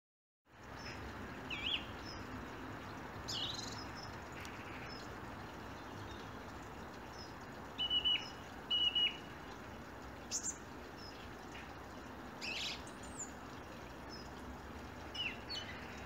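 Garden songbirds in a winter dawn chorus, which the recordist takes for blackbirds and a European robin: scattered short, high, varied phrases, the loudest two clear notes about eight and nine seconds in, over steady background noise.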